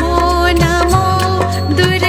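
Outro background music: a melody held over a steady bass with regular percussion hits.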